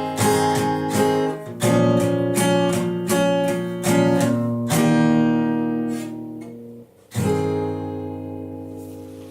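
Acoustic guitar strumming chords in a steady rhythm, stopping briefly near the end before a final chord rings out and fades.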